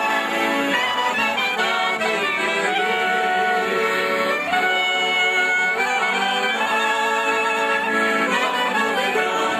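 Clarinet playing a folk dance melody live, with quick ornamented runs and trills.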